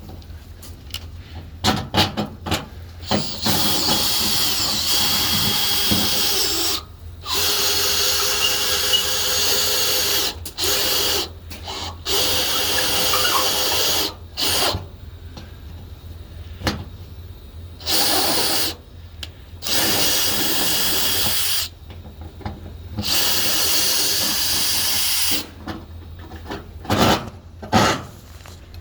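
Power drill running in repeated bursts, each lasting a second to about three seconds, with short pauses and knocks and clicks between, as holes are drilled and worked out for the mounting bolts.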